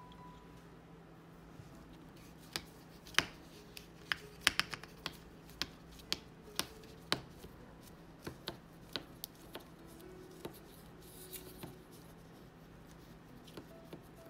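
Thin aluminium foil tart cups clicking and crinkling as a gloved hand handles them and presses tart dough into them: irregular sharp little clicks and taps, thickest through the middle and thinning out near the end.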